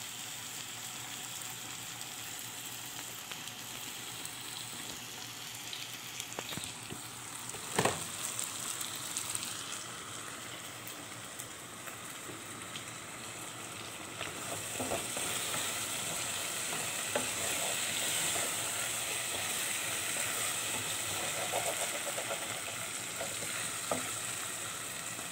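Diced potatoes and onions sizzling in an aluminium pot on a gas stove, with a steady hiss. About a third of the way in comes a single sharp knock. From just past halfway a wooden spoon stirs the pot, its small clicks and scrapes against the side over a slightly louder sizzle.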